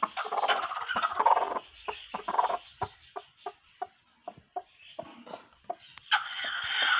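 Broody hen sitting on her eggs calls out as a hand reaches under her. There is a harsh, drawn-out squawk at first, then a run of short clucks at about three a second, then another long harsh squawk near the end: a sitting hen protesting at being disturbed on the nest.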